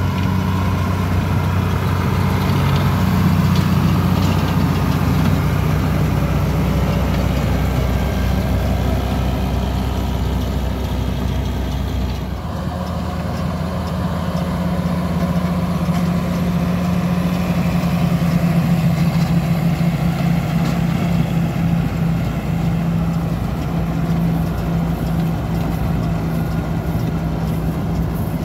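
New Holland TM175 tractor's six-cylinder diesel running steadily under load while pulling a Supertino R170 round baler that is picking up and baling ryegrass. The engine note changes abruptly about twelve seconds in.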